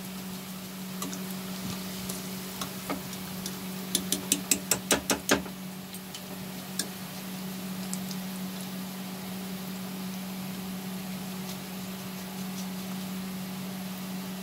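A wire spider strainer of fried okra tapping against the rim of a steel kadhai, about seven quick metallic taps about four seconds in, with a few single clicks elsewhere, knocking off the excess oil. A steady low hum runs underneath.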